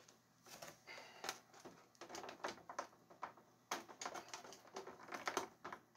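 Faint, irregular plastic clicks and taps from hands working a stiff knob off the plastic base of a Mr. Christmas bobsled ride.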